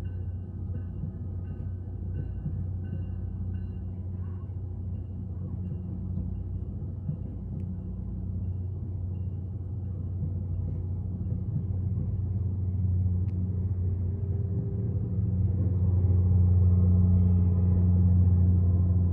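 Diesel locomotive engine rumbling steadily as a Virginia Railway Express commuter train passes, heard through a hotel window. The rumble grows louder in the last few seconds.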